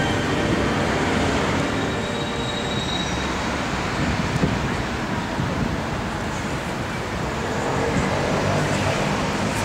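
Steady rumble of city road traffic mixed with wind buffeting the microphone.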